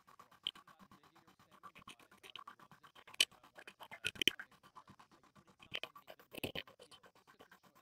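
Makerbot Replicator 2 3D printer running a print: its stepper motors give a steady hum with fast ticking as the print head moves. Several sharp scratchy knocks cut in, loudest about three to four seconds in and again near six and a half seconds.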